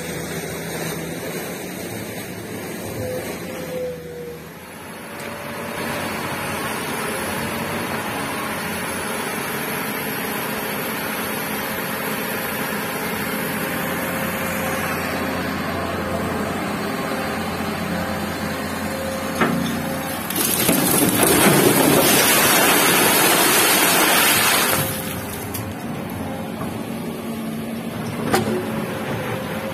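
Komatsu hydraulic excavator's diesel engine running steadily while loading a dump truck. About two-thirds of the way through, a bucketful of river gravel is dumped into the steel truck bed with a loud rushing clatter lasting several seconds, with a sharp knock just before it and another near the end.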